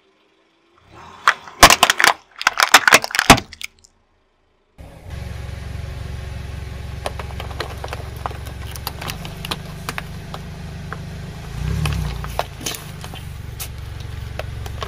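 Hard plastic toy buses cracking and snapping under a car tyre in a quick run of sharp cracks. Then a car engine running steadily while the wheel rolls over plastic spray bottles, with scattered small crackles and a brief swell in engine sound near the end.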